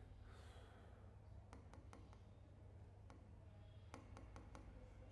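Near silence: a low steady hum in the room, with a few faint clicks coming in two small groups, about a second and a half in and again about four seconds in.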